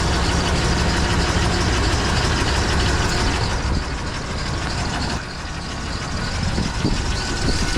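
1989 GMC Sierra pickup's engine idling steadily, dipping slightly in loudness about five seconds in.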